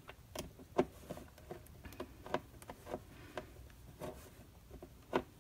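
Small screws being started by hand and turned with a Phillips screwdriver into the metal strip of a Cutterpillar Crop paper trimmer: faint, irregular clicks and light scraping of metal and plastic.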